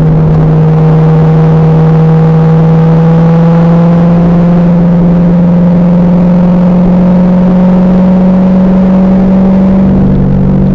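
The Firehawk's LS1 V8, through its SLP exhaust, pulling under load with the engine note climbing slowly and steadily. Near the end the note steps down and changes character. The recording is loud and rough.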